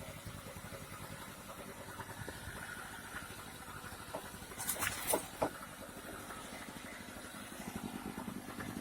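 A fishing boat's engine running steadily at low revs, with a few short sharp knocks or splashes about halfway through.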